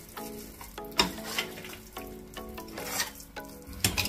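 A slotted spatula stirring and scraping a thick gram-flour and onion mixture in a pressure cooker pot, with a few sharper scrapes against the metal: the gram flour being worked into the spices so that no lumps form.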